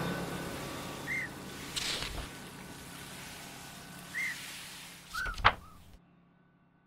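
Street ambience: traffic noise fading away under a steady low hum, with a few short high chirps and a couple of sharp clicks, the loudest just after five seconds in, then the sound cuts off abruptly about six seconds in.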